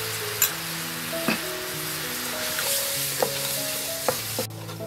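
Chili paste sizzling in a pot of bubbling liquid while a metal ladle stirs it, clinking several times against the aluminium pot. The sizzle stops suddenly near the end, with soft background music underneath throughout.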